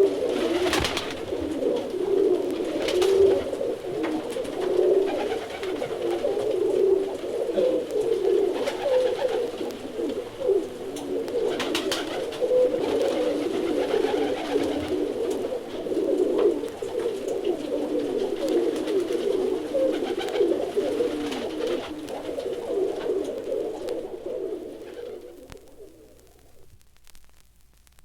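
Birds calling in a dense, continuous low warble that fades out over the last few seconds.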